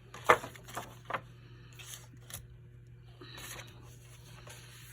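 Paper and foil sheets being handled: a few sharp taps and crinkles in the first second or so, the first the loudest, then a brief rustle, over a steady low hum.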